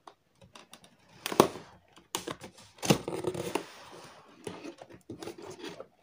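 Cardboard toy box being pried open by hand: scraping and rustling of the cardboard flaps, with a few sharp clicks and knocks, the strongest about a second and a half in.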